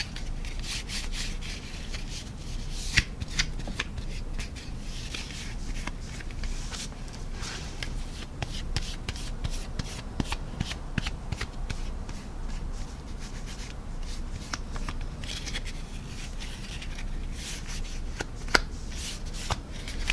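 Paper towel rubbing dried panel-line wash off the painted plastic surface of a scale model aircraft, wiped backwards in the direction of airflow: a run of short, irregular scratchy strokes with the odd sharper tick.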